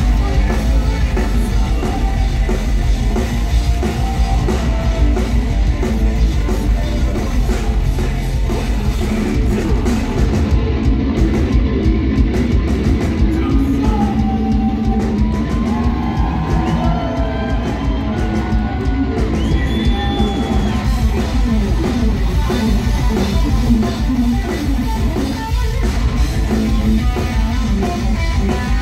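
Live heavy metal band playing loud: distorted electric guitars, bass and a pounding drum kit, with singing in the first part. From about 14 to 20 seconds a lead guitar solo rises over the band, with bending notes.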